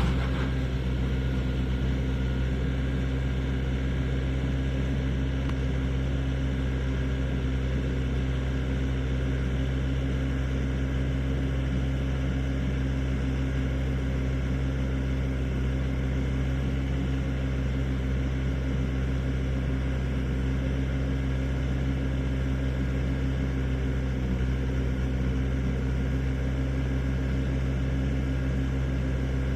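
Excavator engine running steadily at one constant speed, a low, even hum that does not change.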